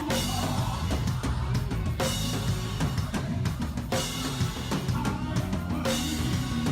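Drum kit played hard over a band groove with a bass line: kick drum, snare and rimshots, with a cymbal crash about every two seconds.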